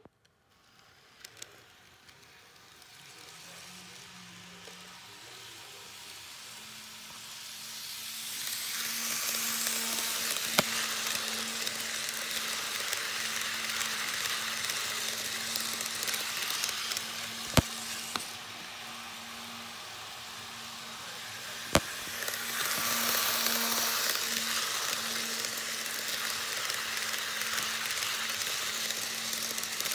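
Model train cars rolling fast along the track: a steady hissing rush of wheels on rail that builds over the first several seconds, dips briefly and swells again, under a faint steady hum. Three sharp clicks stand out.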